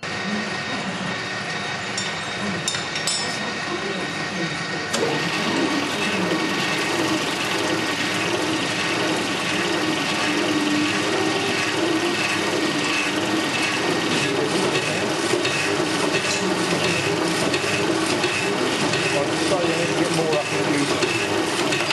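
Power hacksaw running, with a few clicks early on, then its blade biting into a steel strip about five seconds in and sawing on with a steady, repeating back-and-forth stroke.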